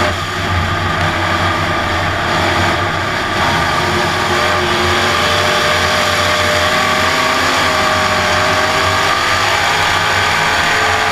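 Dirt-track race car's engine running hard at racing speed, heard from inside the cockpit, its pitch rising and easing slightly through the turns.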